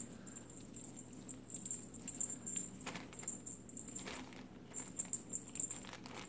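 Faint rustling and a few soft taps as cats bat and paw at a feather wand toy and a crinkly plastic bag, with a thin high-pitched whine coming and going.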